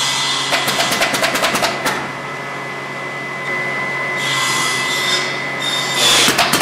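Bolt cutters working at steel zigzag sofa springs: bursts of quick metallic clicks and rattles, with a quieter pause in the middle before the clicking picks up again near the end.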